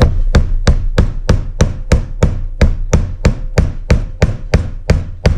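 Steady hammer blows, about three a second, driving a screwdriver under the edge of the old oil seal in the lower crankshaft end cap of a Mercury Thunderbolt 500 outboard to force the seal out. Each blow is a sharp knock with a short metallic ring.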